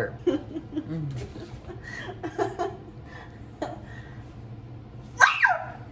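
A woman laughing in short giggles, with a brief high-pitched squeal a little after five seconds in.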